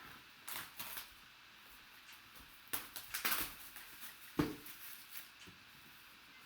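Faint, intermittent rustling and handling noise from opening a box of trading cards and its packaging. There are a few short crinkles and taps, the sharpest about four seconds in.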